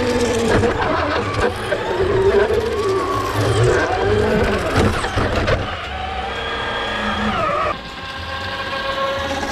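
Traxxas Slash RC truck's electric motor and drivetrain whining as it drives on concrete, the pitch rising and falling as it speeds up and slows. Near the end the sound drops to a quieter, steadier level.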